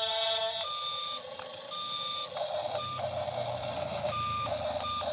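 Toy RC excavator's built-in sound effect: a repeated electronic warning beep, about once a second, over the whir of its small motor as the cab swings round. The toy's sound is working again after a loose wire was resoldered.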